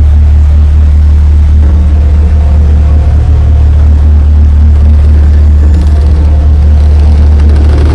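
Loud, steady low bass drone from a hardcore live act's sound system, with no clear beat.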